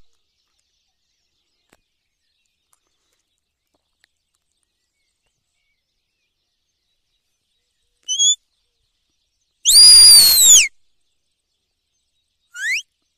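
A loud, high-pitched whistled call about a second long, arching and then sliding steeply down in pitch, about ten seconds in. Two short rising chirps come just before it, and another short rising chirp comes near the end.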